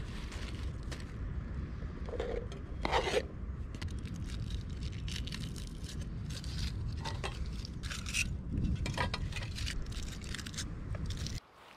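Wind rumbling on the microphone, with scattered short scrapes and light knocks of handling, cutting off abruptly near the end.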